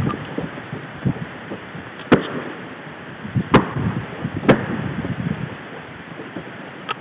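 Wind rushing on the microphone in an inflatable boat on open water, with three sharp, short knocks about two, three and a half and four and a half seconds in.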